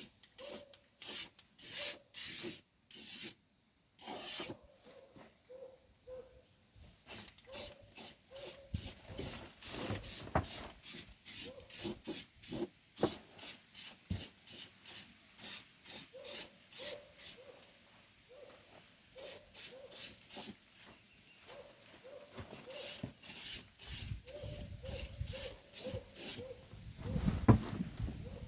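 Aerosol can of Rust-Oleum rubberized black undercoating sprayed in many short hissing bursts, often two or three a second, with brief pauses. A louder thump comes near the end.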